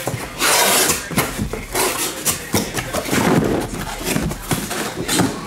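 Cardboard case being opened by hand, its flaps folded back and the card boxes inside handled. A long scrape of rubbing cardboard comes about half a second in, then a run of shorter scrapes and light knocks.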